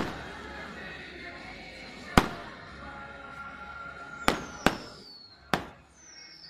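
Firecrackers going off: five sharp bangs, three of them close together in the second half, with two high whistles that fall in pitch.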